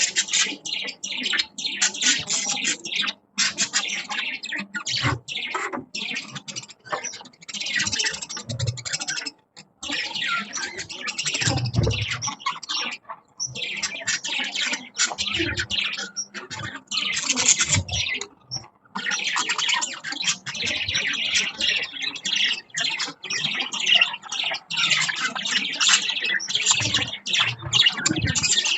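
A flock of budgerigars chirping and chattering nonstop, with many overlapping high calls.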